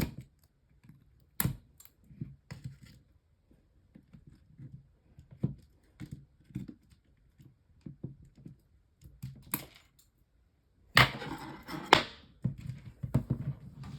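Scattered clicks and knocks of a small plastic fan heater being taken apart by hand as its internal wires are pulled out and cut. About eleven seconds in comes a louder stretch of clatter lasting a second or two.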